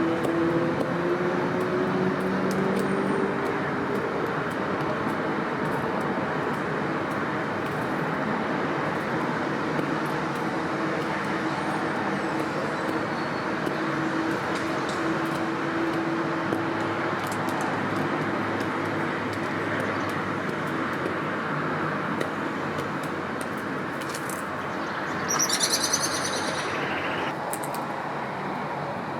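Outdoor ambience of steady road traffic, with a vehicle's engine hum fading out in the first few seconds. Small birds chirp faintly now and then, and one short, loud bird call comes near the end.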